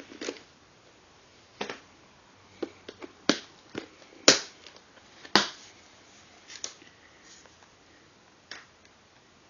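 A plastic storage case of bagged Hot Wheels die-cast cars being handled: a scattering of sharp plastic clicks and knocks with light crinkling of the baggies. The two loudest knocks come about four and five and a half seconds in.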